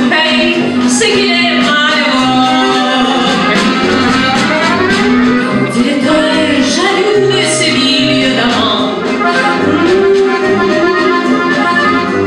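Live acoustic band playing a French song: two accordions, a bayan and a red piano accordion, carry the tune over sousaphone bass notes and snare drum strokes, with a woman singing.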